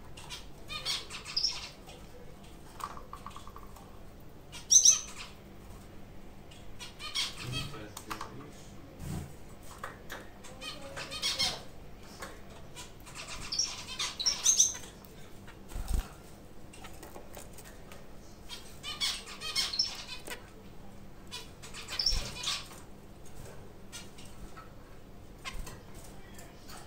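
Pair of zebra finches in a wire cage: short bursts of high calls and wing flutters every few seconds.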